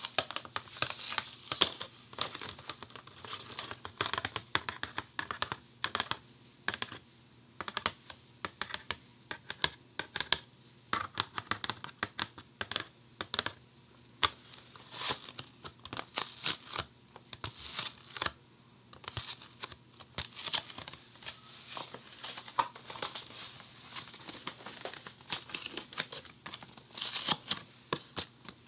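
Quick, irregular tapping and scratching on a Funny Foam box, close to a binaural dummy-head microphone: a dense run of sharp clicks and crackly scrapes.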